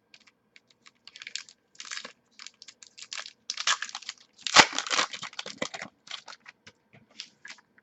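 Crinkling and rustling of trading card packaging and cards being handled and unwrapped, in irregular short clusters, the loudest about four and a half seconds in.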